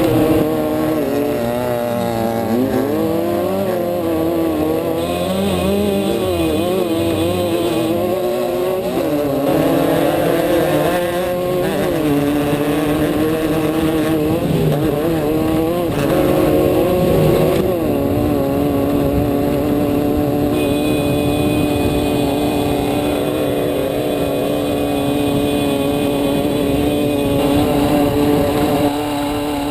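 Off-road race vehicle's engine heard from inside the car, its note rising and falling repeatedly with the throttle, then holding fairly steady through the second half, over constant driving noise.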